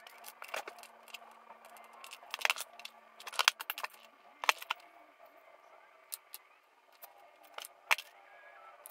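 Hand tools and wire being handled on a workbench: a handful of scattered sharp clicks and taps as wire strippers and a soldering iron are picked up, worked and set down.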